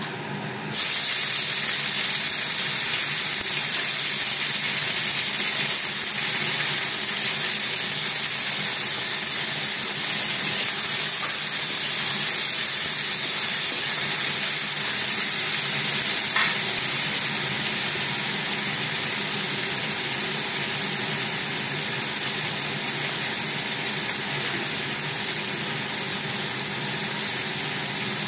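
Chopped tomatoes dropped into hot oil with fried onions in a wok, bursting into a loud sizzle about a second in. The sizzle then runs on steadily as a spatula stirs them, easing a little past the halfway point.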